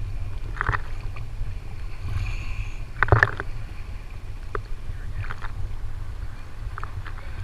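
Sea water sloshing and splashing against a waterproof camera housing held at the surface by a floating scuba diver, over a steady low rumble. Short irregular splashes come every second or so, the loudest just after three seconds in.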